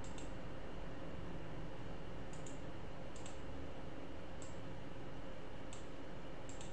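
Computer mouse clicking: about six sharp clicks a second or so apart, some in quick pairs, over a steady background hum and hiss.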